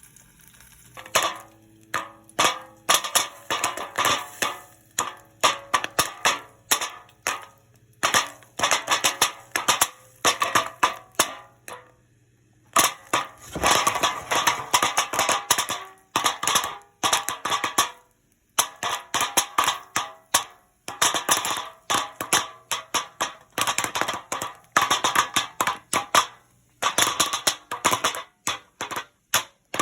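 Microwave popcorn kernels popping in a pot on a stovetop: rapid, irregular sharp pops in dense runs, easing briefly twice before picking up again.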